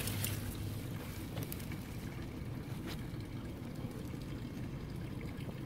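Steady low rumble, with a few faint light clicks and rustles as hands handle sweet potato vines, about three times in the first three seconds.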